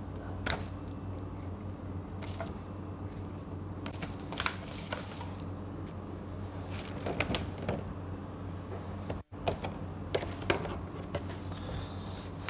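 Steady hum of kitchen equipment, with scattered light knocks of a knife on a plastic chopping board as strawberries are cut and set down. The sound drops out for an instant about nine seconds in.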